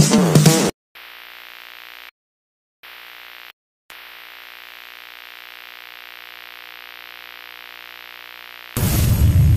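Electronic intro music cuts off abruptly, then a steady electronic hum with static plays, dropping out twice for a moment. A short loud glitch burst sounds near the end.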